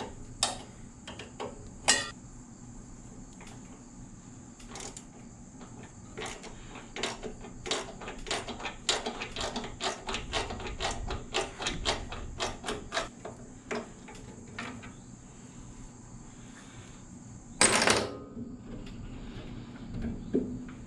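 Metal tool clicks and clinks as bolts on an old engine's carburetor are worked loose by hand, with a quick run of clicks in the middle and a louder clatter near the end.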